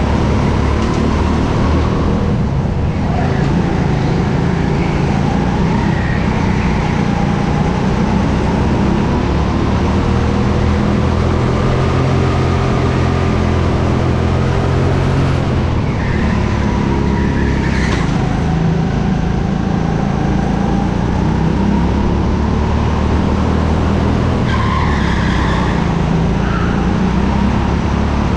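Go-kart engine running at constantly changing revs, rising and falling through the corners, heard onboard. Short tyre squeals come through the turns several times, notably in the second half.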